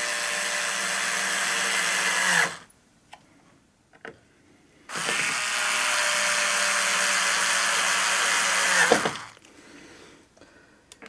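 Bosch cordless screwdriver driving a screw into a wooden baseboard: a steady motor whine that stops about two and a half seconds in, then a second run of about four seconds that winds down in pitch as it stops.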